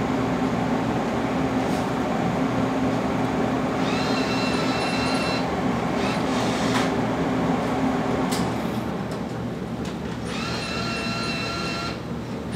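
A steady hum, with a vending machine's bill acceptor motor whirring twice, each time for about a second and a half, as a bill is fed in; a few short clicks between.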